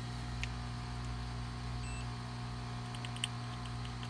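A few light clicks of multimeter probe tips touching the components of a circuit board, the sharpest about three seconds in, over a steady low hum.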